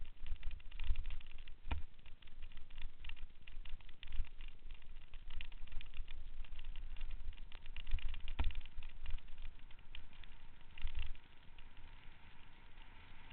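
Mountain bike rolling fast down a rough dirt trail: wind buffeting the microphone and a constant rattle of small clicks and knocks from the bike over bumps, with two sharper knocks, one about two seconds in and one about eight seconds in. It eases off near the end.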